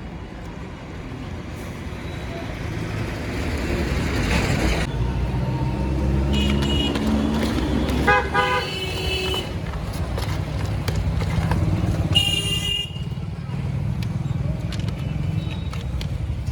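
Road traffic passing with engines running and a rumble, and vehicle horns honking in several short toots around the middle, the loudest two a few seconds apart.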